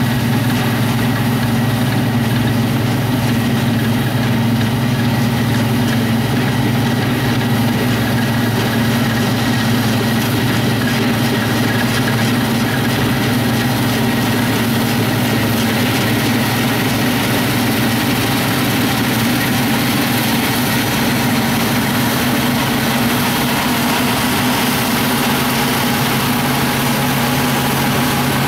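Deutz-Fahr StarLiner 4045H combine harvester running under load while threshing grain: a steady, continuous engine and machinery drone with several fixed humming tones.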